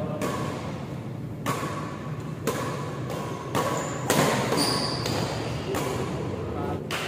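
Badminton rackets striking the shuttlecock in a doubles rally: sharp hits about once a second, the loudest a jump smash about four seconds in.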